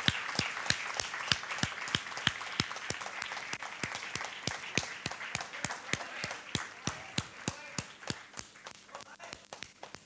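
Audience applauding. The crowd's clapping fades away through the second half, while sharp, evenly spaced claps close by carry on at about four a second.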